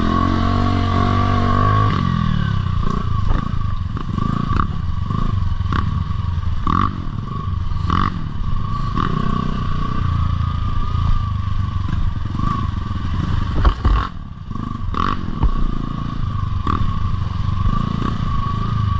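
Motorcycle engine running steadily while being ridden, with frequent short knocks and rattles.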